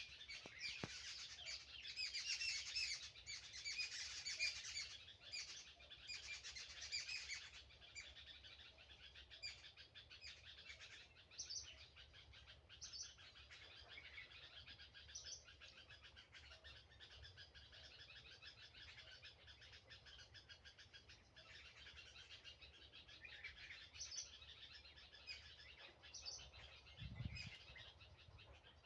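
Many small birds chirping and twittering, a dense chorus for the first seven seconds or so, then thinner, scattered calls.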